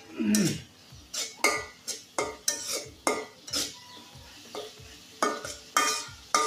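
Metal spatula scraping and clinking against a kadai, stirring onions and spice paste frying in oil, with a faint sizzle underneath: the masala being fried down (kashano). The strokes come about one or two a second, pausing for about a second around four seconds in.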